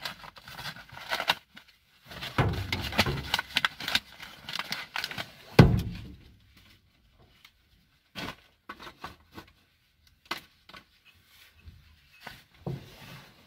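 Rubbish being rummaged and handled: a run of rustles, knocks and clatters, the loudest a heavy thump about five and a half seconds in, then only a few faint knocks.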